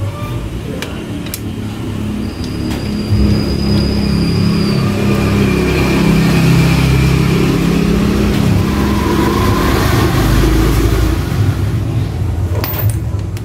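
A motor vehicle's engine running nearby, building up over the first few seconds, holding, then easing off near the end, with a few light metallic clicks near the start and the end.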